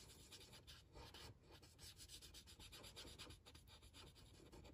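Faint scratching of a Stampin' Blends alcohol marker's felt tip on white cardstock, in quick short colouring strokes as the colour is blended in.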